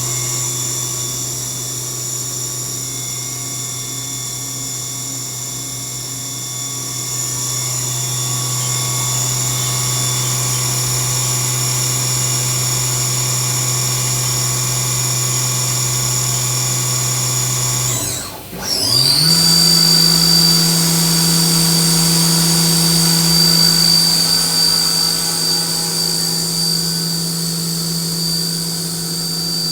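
Haas Super Mini Mill 2 spindle running at a steady speed with a high whine. About 18 seconds in it winds down briefly and spins back up to a new, higher steady speed.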